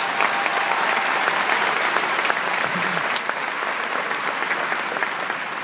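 Large audience applauding, dense clapping that holds steady and then slowly dies away near the end.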